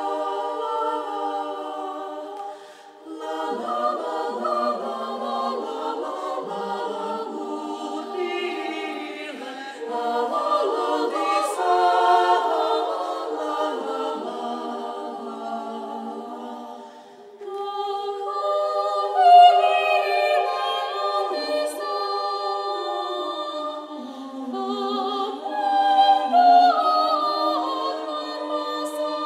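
Women's choir singing a cappella, with short breaks between phrases about three seconds in and again around seventeen seconds.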